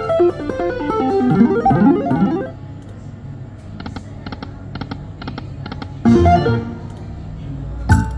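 Slot machine game sounds: a quick run of electronic plucked-sounding notes for the first couple of seconds, then a quieter stretch of short repeated tones. A louder jingle comes about six seconds in and a sharp click near the end.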